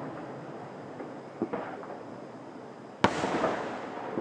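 Fireworks display: aerial shells bursting, a weaker bang about a second and a half in and a sharp, louder bang about three seconds in, followed by a lingering tail.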